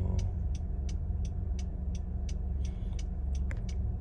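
Low, steady rumble of a car's cabin with a regular ticking, about three ticks a second.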